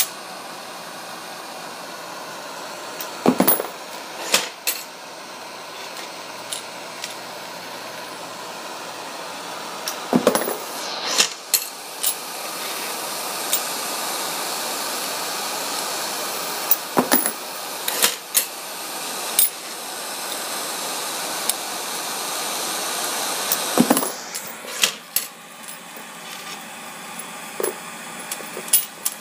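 Giraud case annealer running: the gas torch flame hisses steadily while a pair of sharp metallic clinks comes about every seven seconds as each brass case is indexed out of the flame and dropped. Near the end the hiss drops and loose .223 brass cases clink in a cardboard box.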